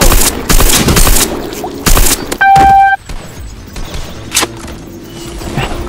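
A quick string of shot-like sound effects, then a loud steady beep lasting about half a second, over background music.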